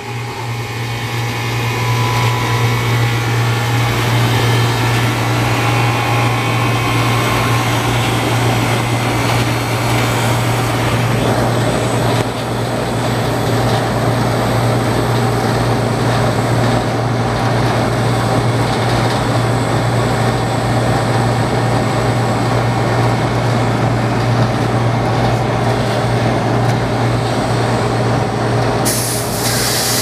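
An old Amana air-conditioning condensing unit starting up and running, with a steady hum from its reciprocating compressor under the condenser fan's rush, building over the first couple of seconds. The system is short of R-421A refrigerant from a slow evaporator leak and is prone to cutting out on low pressure. A brief hiss near the end.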